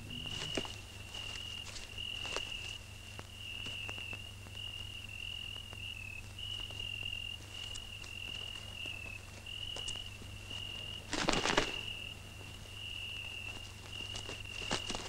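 A continuous high insect trill, like crickets, in a field, over the dry rustle and crackle of sunflower stalks and leaves as people push through them on foot. One louder rustle comes about eleven seconds in.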